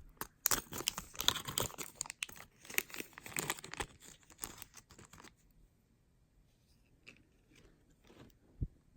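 A small plastic bag crinkling and being torn open, a dense crackle lasting about five seconds. Then a few faint clicks and a soft knock near the end as the contents are handled.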